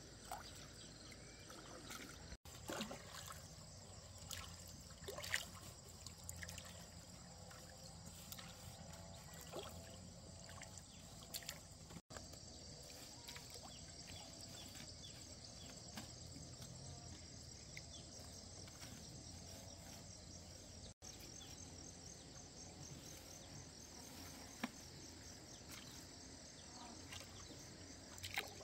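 Faint dripping and trickling of water as a fishing net is hauled hand over hand out of the lake into a boat, with a few sharp clicks. Insects trill faintly.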